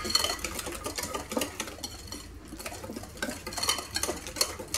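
Wire whisk stirring a thick semolina batter in a glass bowl, its metal wires clicking and scraping against the glass in quick, irregular strokes.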